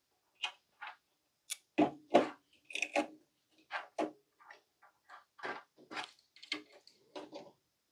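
Irregular clicks, taps and light knocks of hands handling wires and a circuit board inside the metal chassis of a CRT monitor, the firmest knocks about two seconds in.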